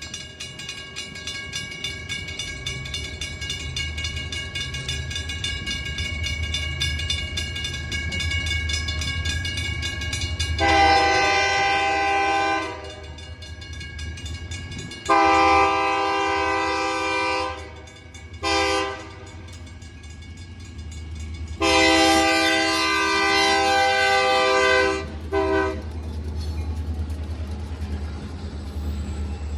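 Grade-crossing signal bell ringing, then a Great Lakes Central Railroad diesel locomotive's air horn sounding the crossing signal: two long blasts, a short one, and a long one, each a chord of several notes. The low rumble of the locomotives passing close by builds near the end.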